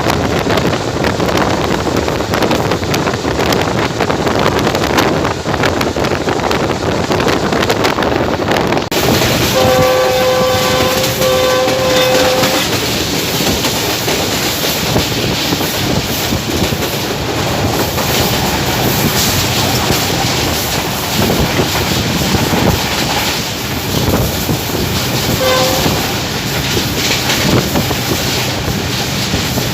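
Train running at speed, heard from on board: a loud, steady rush of wind and wheels on the rails. The GEU-20 diesel-electric locomotive's horn sounds two long blasts about ten seconds in, and a short toot near the end.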